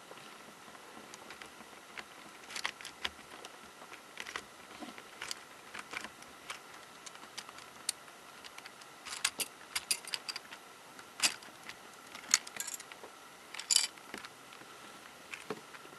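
Plastic pieces of a MoYu 13x13x13 cube clicking and clattering as the puzzle is taken apart piece by piece: irregular light clicks, coming in quick clusters in the second half.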